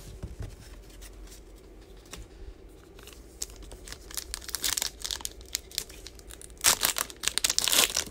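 A foil wrapper of a pack of football trading cards being torn open by hand. It starts with light handling clicks, then crinkles and tears, loudest in a burst near the end.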